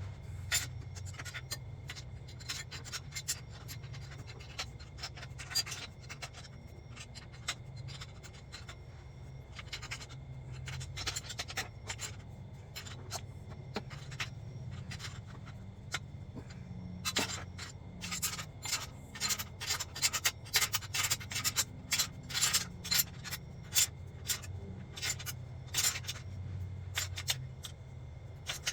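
Metal-on-metal clicking and scraping of a wrench working the bottom up-pipe bolts. The clicks are scattered at first and come quick and dense in the second half, over a steady low hum.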